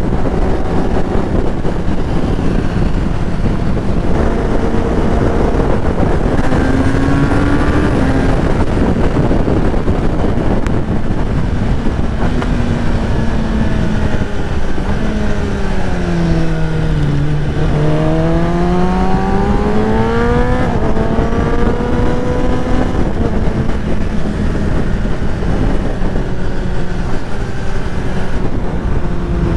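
Kawasaki ZX-10RR's inline-four engine running at highway speed under heavy wind rush. The revs drop from about halfway through, then climb again a few seconds later as the bike accelerates.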